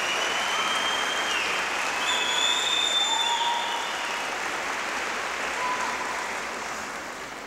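Audience applauding, with several high, held whistles over the clapping; the applause fades away toward the end.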